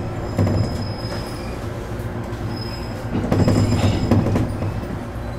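ET127 series electric train rolling slowly over yard points and rail joints, heard from inside the cab: its wheels clunk over the joints, heaviest a little after the start and again between about three and four seconds in, with several short high-pitched squeals from the wheels in the curves.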